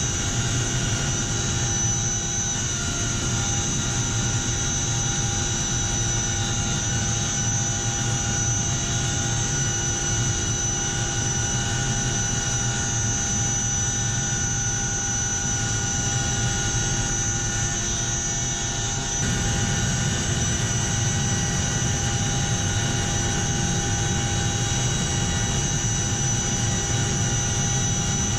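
CH-47 Chinook's twin turbine engines and tandem rotors running steadily, heard from inside the cargo cabin with the rear ramp open: a steady whine at several pitches over a heavy low rotor drone. The level steps up slightly about two-thirds of the way in.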